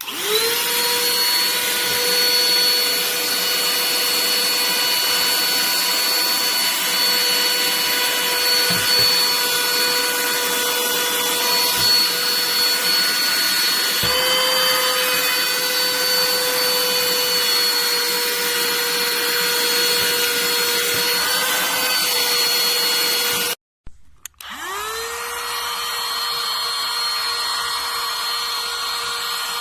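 Ruienbao 12000pa cordless handheld mini vacuum cleaner running with a steady high-pitched motor whine. It is switched off about two-thirds of the way through, then switched back on a second later and spins up to speed again.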